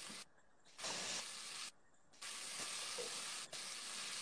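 Meat and vegetables sizzling in oil in a pot while being stirred with a spatula. The sizzle cuts out twice, briefly.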